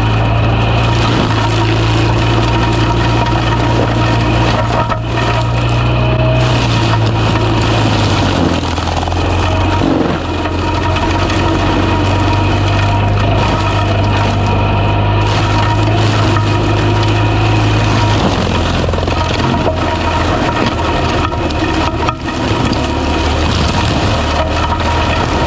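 Fecon Bullhog forestry mulching head on a Cat 308 excavator grinding and splintering brush and wood, with a loud, steady machine drone. The drone's pitch steps lower about eight seconds in and again near eighteen seconds.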